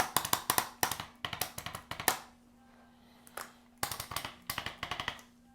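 Handheld percussive vibration instrument tapping rapidly against a patient's back, about eight to ten strikes a second, in two bursts: one of about two seconds, then another of about a second and a half starting about four seconds in.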